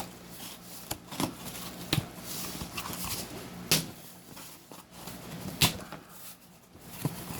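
A package being handled and opened by hand: faint rustling with about half a dozen sharp clicks and snaps scattered through it, the loudest near the middle.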